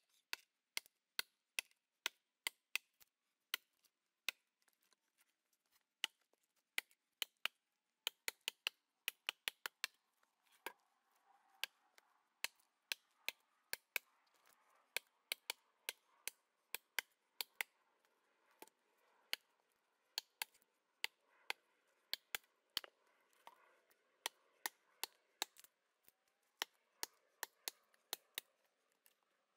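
Axe chopping into a log, a long run of sharp wooden strikes in quick succession, some coming in rapid clusters.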